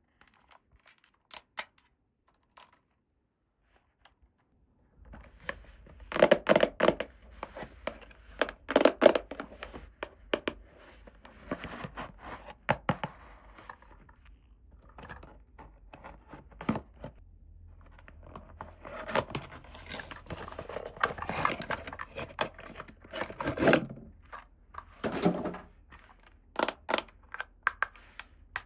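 Toy packaging being torn open and handled: several bursts of tearing and crinkling mixed with clicks and light knocks, starting after a few nearly quiet seconds.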